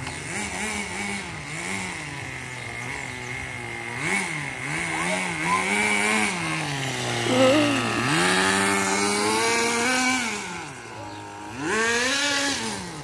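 Radio-controlled model car's motor revving up and down as the throttle is worked, its pitch rising and falling again and again, with a steadier low stretch about seven seconds in and a higher run just after.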